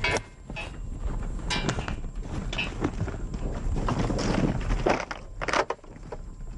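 Saddled horses standing and shifting about, with a few irregular hoof knocks on the ground.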